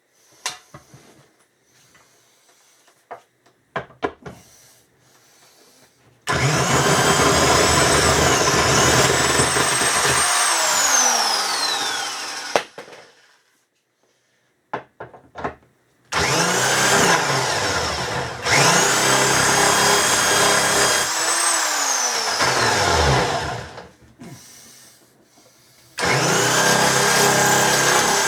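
Impact wrench run in three long bursts, its motor winding down with a falling whine after the first two. Before the first burst there are a few light clicks and knocks.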